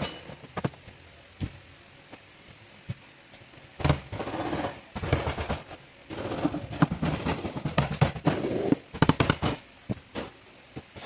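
A few sharp clicks as the fuel pump module's lock ring is pressed down and seated on the fuel tank, then several seconds of rapid clattering knocks.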